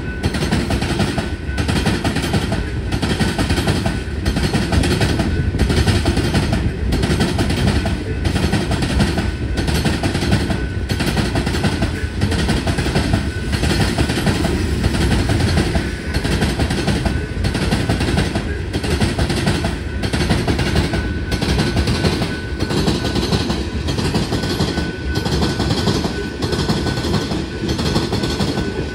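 Loaded rock train of open-top gondola cars rolling past close by: a steady rumble of steel wheels on rail with a regular clacking beat as the wheel trucks pass.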